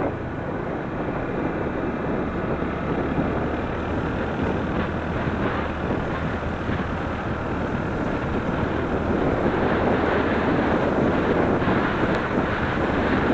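Steady rush of wind and road noise from a moving vehicle, with a low engine hum underneath, growing a little louder in the second half.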